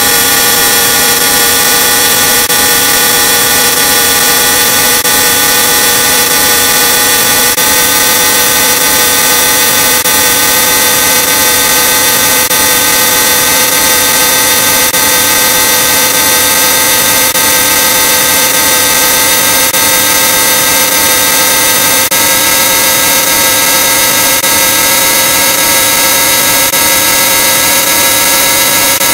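Loud, harshly distorted electronic drone from digitally effects-processed audio: a stack of steady tones over heavy hiss, slowly rising in pitch.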